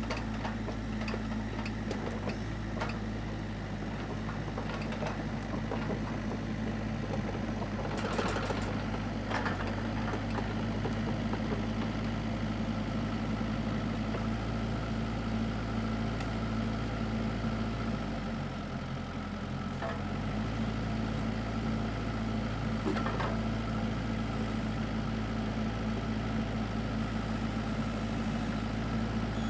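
Kubota KX121-3 mini excavator's diesel engine idling steadily, with a few sharp clanks over it. The low engine note shifts briefly about two-thirds of the way through.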